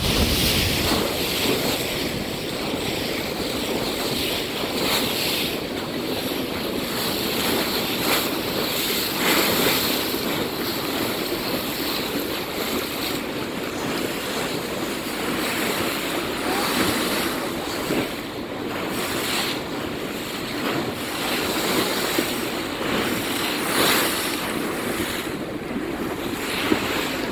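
Wind and sea noise, with gusts buffeting the microphone that swell and ease every second or two.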